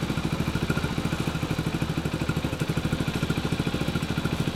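Honda Super Cub 90's customised single-cylinder four-stroke engine idling steadily, a quick even putter.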